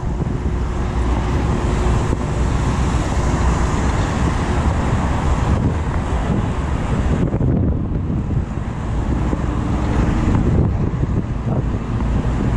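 Wind buffeting the microphone of a chest-mounted GoPro Hero 6 while riding a mountain bike, over a steady rumble of road traffic running alongside.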